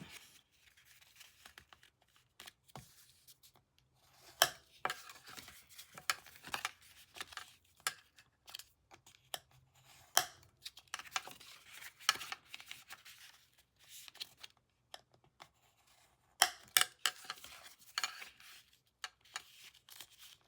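Bone folder creasing the folds of scored cardstock: irregular taps and short rubbing swishes as the paper is handled and pressed flat.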